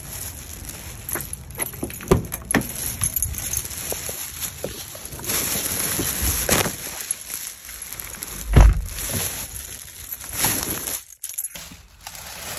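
Footsteps and handling knocks while a plastic shopping bag rustles. A heavy low thump comes a little past the middle, a car door shutting.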